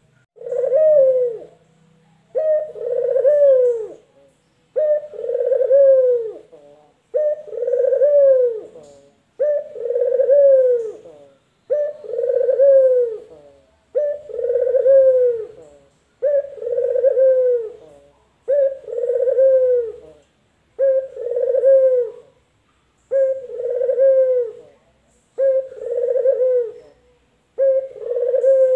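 Male puter (Barbary dove) cooing over and over, about thirteen long coos roughly one every two seconds, each dropping in pitch at the end.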